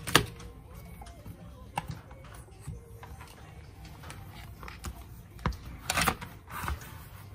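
Handling noise from a multimeter and its test probes on a workbench: a few short, sharp clicks and knocks, the loudest at the very start and a small cluster about five to six seconds in, over a low steady hum.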